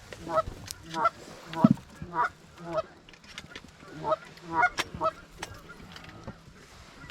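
Goose honking: a quick, uneven run of about a dozen short honks and clucks, about two a second, followed right at the end by a sharp click.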